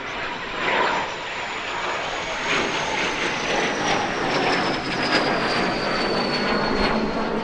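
Small jet trainer making a low, fast pass: a steady engine roar with a high whine that slides slowly down in pitch as the jet goes by. The sound cuts off abruptly at the end.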